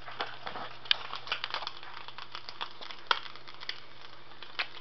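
Egg frying in oil in a nonstick pan: irregular crackling and spitting, with a few sharper pops.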